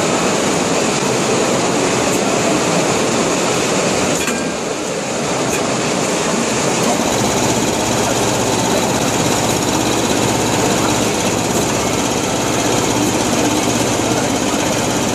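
Machinery running steadily with a dense, continuous noise; a low hum joins about seven seconds in.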